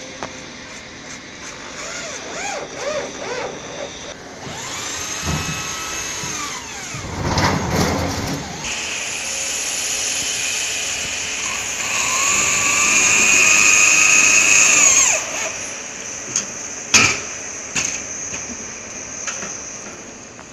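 Cordless drill driving screws. Its motor whines up in pitch and runs steadily for a few seconds at a time, twice. A couple of sharp knocks follow near the end.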